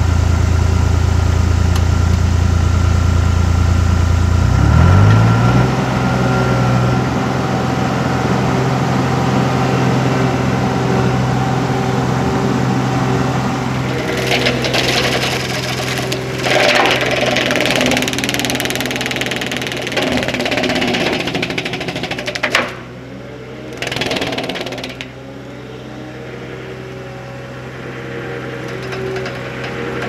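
John Deere 250 skid steer's diesel engine running with its hydraulic brush cutter spinning; the engine note rises about five seconds in and then holds steady. From about 14 seconds there are bursts of shredding noise as the cutter goes into the brush, and the sound drops off after about 25 seconds.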